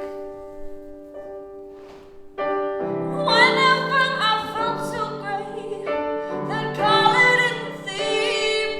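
Solo piano and a woman's singing voice in a live performance: a held piano chord dies away for about two seconds, new chords are struck about two and a half seconds in, and her voice comes back in with long sung notes.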